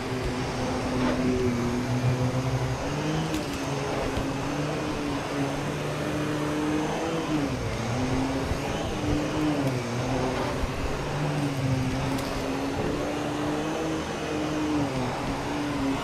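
Vacuum cleaner running steadily, its motor hum dipping and rising in pitch every second or two over a rushing hiss.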